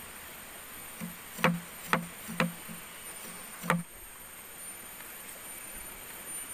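A handful of sharp knocks: three about half a second apart, then one more about a second later, over a steady high-pitched buzzing of forest insects.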